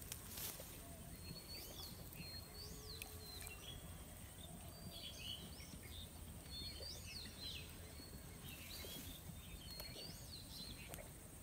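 Faint bird calls: one bird repeats a short, high, rising-then-falling call every couple of seconds, with scattered chirps from other birds, over a low background rumble.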